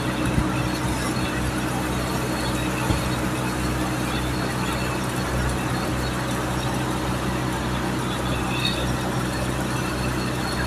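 Stick-welding arc crackling steadily as an electrode runs a vertical-up pass on a steel pipe joint, with a steady low hum underneath.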